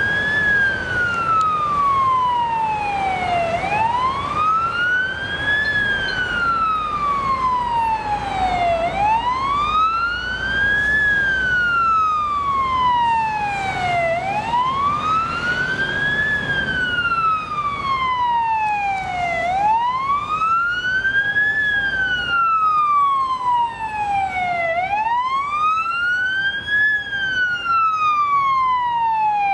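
Fire engine's siren on a slow wail, rising for about two seconds and then falling for about three, over and over, over the low rumble of idling traffic.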